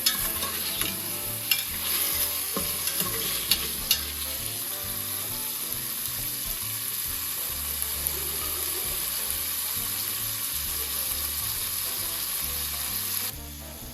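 Food frying in hot oil in a pan, a steady sizzle, with a utensil knocking against the pan several times in the first few seconds as it is stirred; the sizzle cuts off near the end. Faint music plays underneath.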